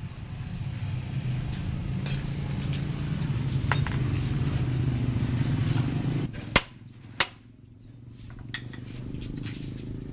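A motorcycle engine running steadily, which stops about six seconds in. Two sharp clicks follow it, then a few light metallic clinks.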